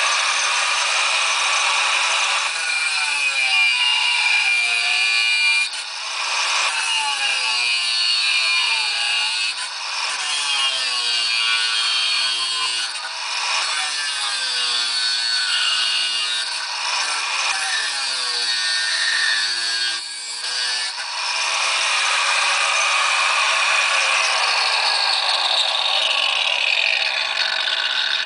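Makita 9565HZ1 1100 W angle grinder running at speed and cutting into a metal bar, its disc shrieking against the steel. Its motor note sinks each time the disc is pressed into the cut and recovers between passes, about half a dozen times. Over the last several seconds it runs on with a steady high whine.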